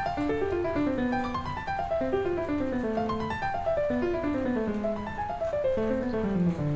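Solo piano playing slow classical music in repeated falling runs of notes, with a low note held near the end.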